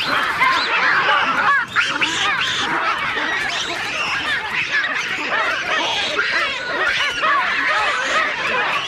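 A troop of baboons screaming in alarm: many shrill, overlapping calls at once as a crocodile seizes one of them at the water's edge.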